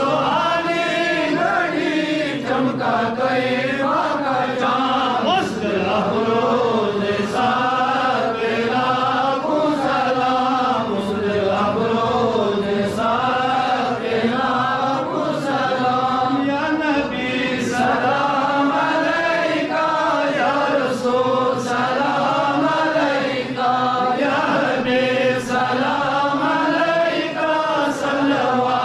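Several voices chanting together in a continuous, melodic religious chant, the lines drawn out and wavering in pitch with no breaks.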